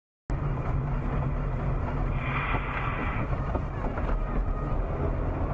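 Steady rumble of a car driving: engine and road noise, cutting in abruptly a moment in.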